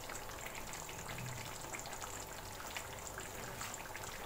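Aloo keema simmering in a wok on a low flame: a faint, steady crackle of sizzling with many small pops.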